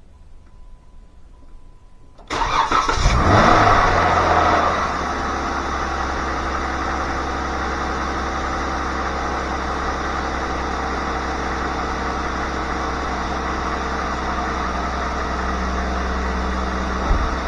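2013 Jeep Wrangler Rubicon's 3.6-litre V6 starting on fresh oil just after an oil change: it catches at once about two seconds in, flares up briefly, then settles to a steady idle.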